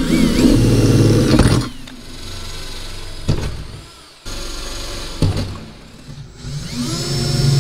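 Cordless drill boring through the sheet-steel wall of a combine grain tank with a twist bit, the motor labouring under load for the first second or two. A few sharp knocks follow, and near the end the drill spins up again with a rising whine.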